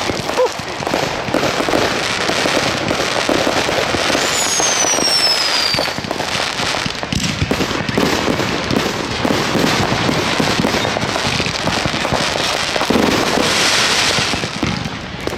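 Fireworks going off in rapid succession: a dense, continuous run of crackles and bangs, with a whistle falling in pitch about four seconds in.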